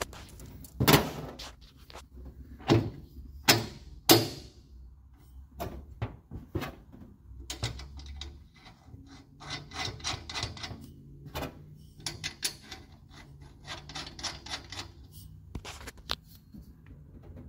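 Metal parts knocking and clanking as a bolt-on seat back brace bracket is handled and fitted, with four loud knocks in the first few seconds. After that comes a long run of quick, light clicks and rattles as the bracket's bolts are worked in.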